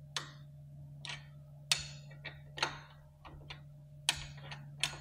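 Irregular metallic clicks and clinks of a wrench being fitted to the rear hub motor's axle nut on an e-bike, about ten in all.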